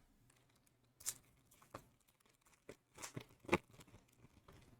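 Faint crinkling and tearing of a foil booster-pack wrapper as a trading-card pack is opened, a few scattered rustles with the loudest about three and a half seconds in.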